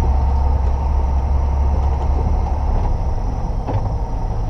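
Heavy diesel truck heard from inside its cab as it drives a loaded sugarcane road train over a muddy dirt road: a steady low engine drone with road noise, which turns more uneven a little past halfway through.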